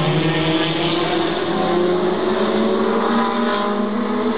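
Several race car engines running together around the oval, their pitches drifting slightly as the cars circulate.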